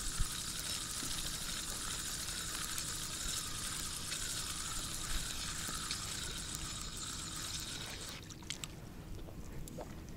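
Spinning reel being cranked steadily, winding in a hooked fish. The winding stops about eight seconds in, followed by a few light clicks.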